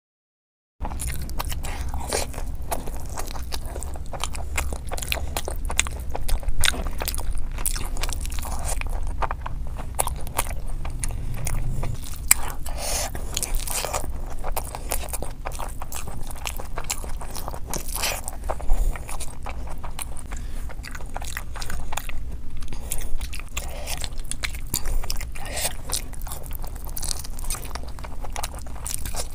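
Close-miked eating: a person chewing and biting mouthfuls of fried rice and chicken eaten by hand, with many short mouth clicks and smacks over a low steady hum. It starts after about a second of silence.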